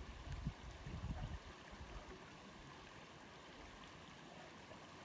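Steady hiss of flowing stream water, with low rumbling on the microphone during the first two seconds.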